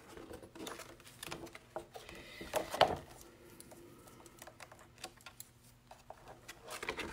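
Scissors snipping around a stamp on its backer sheet: quiet, irregular small clicks, with one louder snip just under three seconds in.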